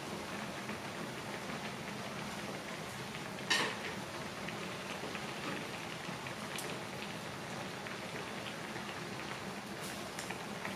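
Udon broth at a rolling boil in a foil aluminium pan over a portable gas burner: steady bubbling with fine crackles throughout. A single sharp click about three and a half seconds in.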